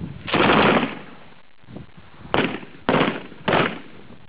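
Heckler & Koch MG4 5.56 mm belt-fed light machine gun firing on full auto: one burst of about half a second, then after a pause three short bursts in quick succession near the end.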